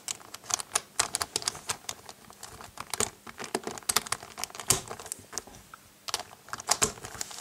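Plastic pieces of a QJ 4x4 Rubik's cube being pushed and snapped back into the cube by hand during reassembly: a run of small, irregular clicks and clacks, with a short lull about two-thirds of the way through.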